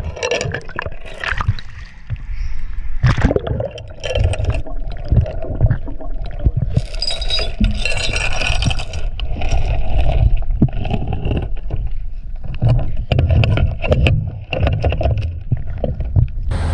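Steel tow chain and hook clinking, knocking and scraping against a sunken truck's rear axle as it is hooked on, heard underwater with bubbling and muffled rumble.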